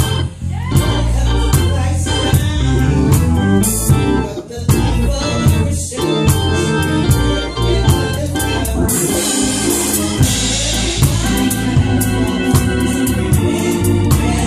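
Live gospel music: an organ playing with a drum kit keeping a steady beat, and a choir singing.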